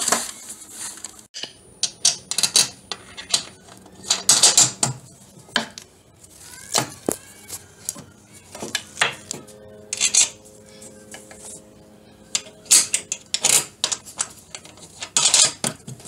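Irregular plastic clicks, rattles and knocks of hands snapping MC4 solar-panel connectors into a power box's receptacles and working on the cable connections beneath it.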